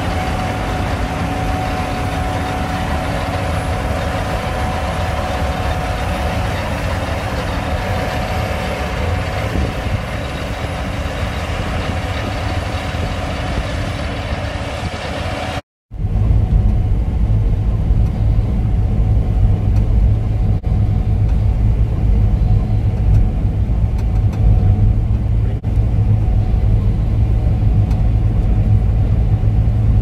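Gleaner S77 Super Seven combine running under load as it picks up swathed oats. For the first half it is a steady machine drone with a thin whine. After a sudden cut about halfway, it becomes a deeper, heavier drone heard from inside the combine's cab.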